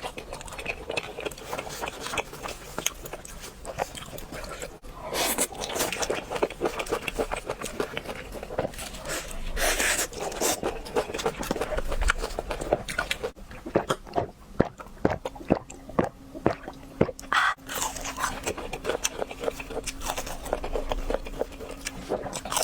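Close-miked eating of crunchy fried food: many crisp bites and crunching chews, with a few louder, longer crunches.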